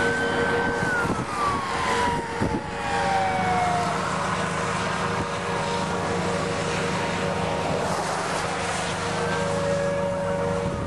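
A siren wailing, its pitch rising, holding briefly, then falling slowly over the first few seconds, over steady vehicle and wind noise.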